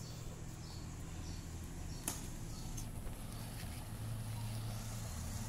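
Low, steady hum of an idling motor vehicle engine, with a couple of light clicks about two and three seconds in.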